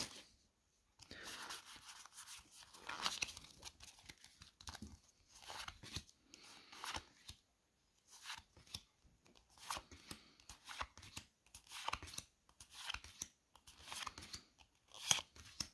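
Pokémon trading-card booster pack being torn open and its cards handled: a string of short, faint crinkles, tears and scrapes of foil wrapper and card stock.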